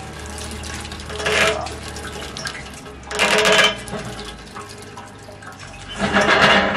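Water dripping and splattering from a wet skein of dyed eri silk yarn as it is twisted and wrung out on a metal pipe frame, with three short louder spurts of splashing.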